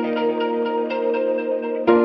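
Background music: a slow ambient piece of held tones with soft plucked notes, a new chord striking just before the end.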